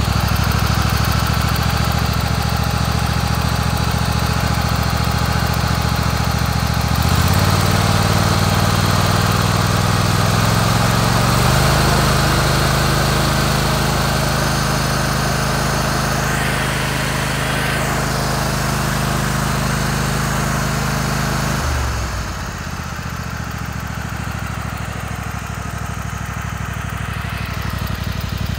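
Kohler Command 25 V-twin engine running with the puffing noise of a blown head gasket at its right cylinder. It speeds up in two steps, about seven and then about eleven seconds in, holds there, and drops back to idle about three-quarters of the way through.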